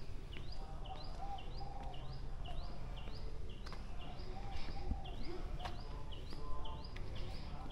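A bird calling over and over, one short rising note about twice a second at an even pace, over a steady low rumble of background noise.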